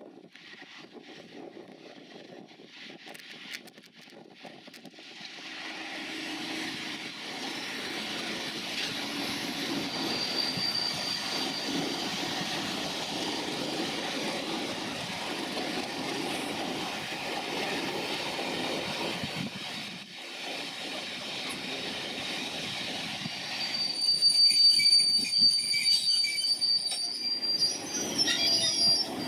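Class 37 diesel-hauled test train running through the station: rail and wheel noise building up about six seconds in, with a high-pitched wheel squeal that comes and goes and is loudest in the last few seconds.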